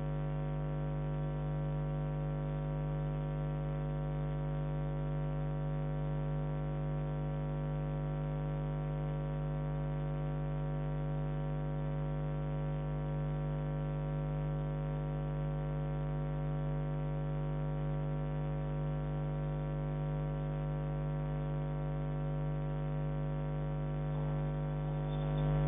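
Steady electrical hum made of a stack of evenly spaced tones, strongest in the low range, with no knocks or rattles.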